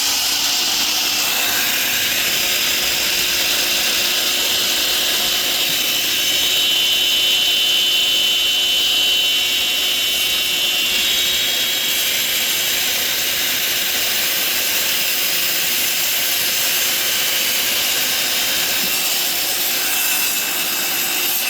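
Miter saw with an 80-tooth carbide blade running at full speed and cutting through composite decking, a loud, steady saw noise.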